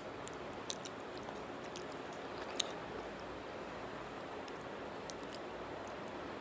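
A toddler eating by hand: a few faint small clicks, the sharpest about two and a half seconds in, over a steady hiss.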